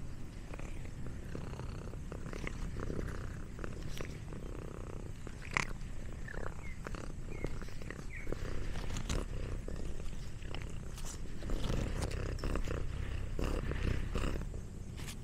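Domestic cat eating a snack close to the microphone: irregular crunching and chewing clicks over a steady low purr.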